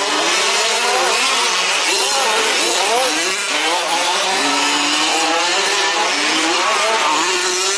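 Several 1/5-scale petrol RC off-road trucks racing together, their small two-stroke engines revving over one another, each pitch rising and falling as the trucks accelerate and back off.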